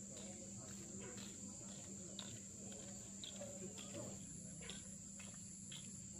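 Steady high-pitched insect chorus, typical of crickets or cicadas, with a low hum beneath it.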